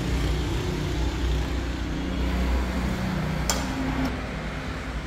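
Two sharp snips of hand cutters through plastic cable trunking, about three and a half seconds in and half a second later, the second fainter. Under them runs a steady low background rumble.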